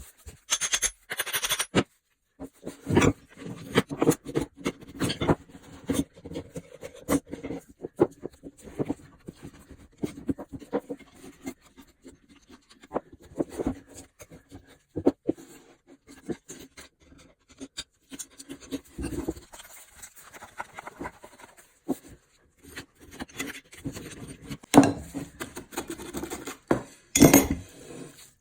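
Irregular metal clinks, knocks and scraping from hand work on an old rusty axe head, with short louder clusters of scraping now and then.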